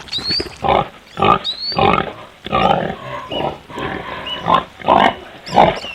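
Pigs grunting and snorting in a rapid series of short, loud calls, about two a second.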